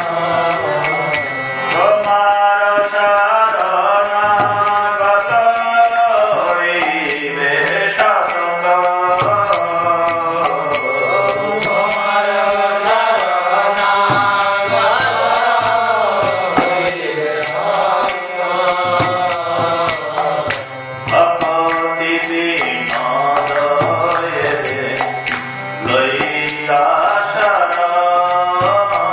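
A man's voice chanting devotional mantra prayers in a melodic line, phrase after phrase of a few seconds each, gliding up and down in pitch, over a steady fast high ticking beat.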